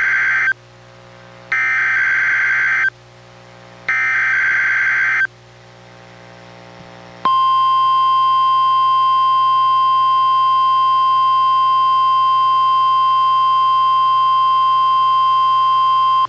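NOAA Weather Radio Emergency Alert System data header for a Required Weekly Test: the end of one SAME burst and two more full bursts of buzzy digital data, about a second and a half each, with short gaps between. After a pause, the single steady 1050 Hz NWR warning alarm tone starts about seven seconds in and holds for about nine seconds; this is the tone that sets off weather radio alarms.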